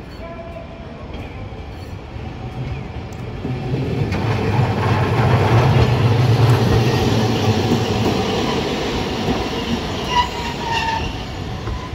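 Hiroden 700-series streetcar, car 712, running past close by on its rails. The sound of its wheels and motors swells to loudest about halfway through, then eases off, with a few short squeals from the wheels near the end.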